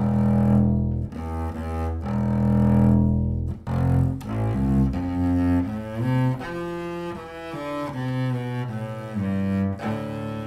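Shen 7/8 Gemunder willow flatback double bass bowed (arco) on well-used Obligato strings: two long, low sustained notes, then a quicker passage of shorter notes that climbs higher and falls back.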